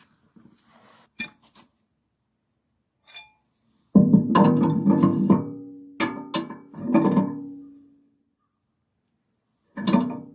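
Music: a few plucked guitar chords and notes, each struck sharply and left ringing, after a few seconds of near quiet.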